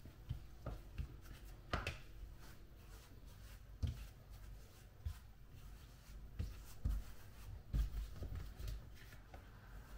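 Kitchen handling sounds: scattered light taps, knocks and rustles at an uneven pace, with a few louder soft thumps.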